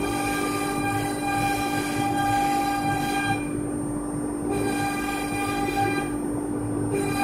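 CNC router spindle running steadily with a high whine while its bit carves a groove pattern into a furniture panel. A higher multi-tone whine from the machine rises over it, cutting out twice, about three and a half and six seconds in, then returning.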